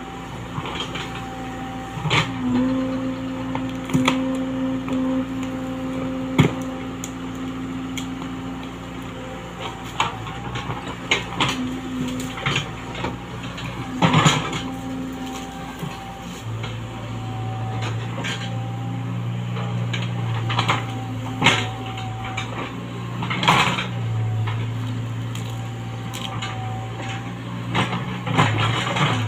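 Komatsu PC75UU mini excavator running under load as its bucket digs out a tree stump, a steady diesel and hydraulic drone that shifts to a lower pitch about halfway through. Sharp cracks and knocks of roots and wood breaking and the bucket striking break in every few seconds, one of the loudest about 14 s in.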